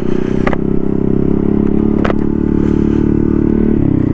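Honda Grom's single-cylinder four-stroke engine running at steady revs under way, with a couple of sharp clicks, the revs dropping near the end. The rider believes the clutch is worn out.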